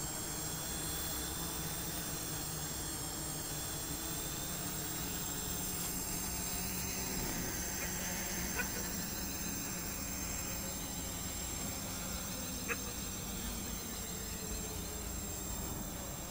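Quadcopter's electric motors and propellers buzzing steadily as it hovers and flies low, with two brief clicks about four seconds apart.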